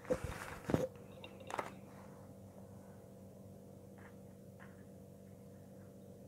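A few brief rustles and taps as a plastic ruler is laid down on a sheet of pattern paper, all within the first two seconds, then only a faint steady hum.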